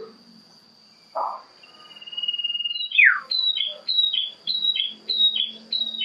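Caged common iora (cipoh) singing loudly. It gives a falling note, then a held high trill and a steep downward swoop, followed by a run of about six short, sharp falling whistles, roughly two a second. A steady thin high insect drone runs behind.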